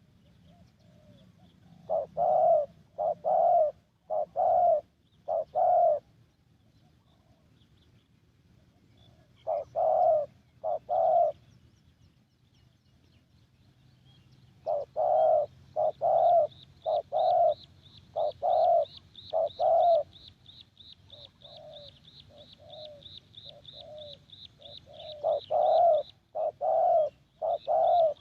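Spotted dove cooing in repeated phrases of several low notes with short pauses between phrases. In the second half a faint, rapid, high-pitched ticking runs behind it at about four a second.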